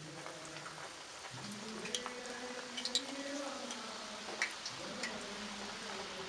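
Dough-wrapped date and almond pastries deep-frying in hot oil: a steady sizzle and crackle, with a few sharp pops as more pieces are dropped into the oil.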